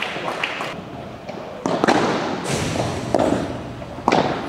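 Padel ball knocks, bounces and racket hits, about four sharp knocks with the last near the end the loudest, echoing in a large indoor padel hall.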